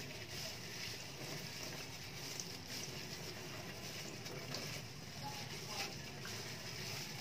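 Tap water running in a low trickle into a stainless steel sink, pattering on the steel while ink-soaked printer ink absorber pads are rinsed and squeezed by gloved hands.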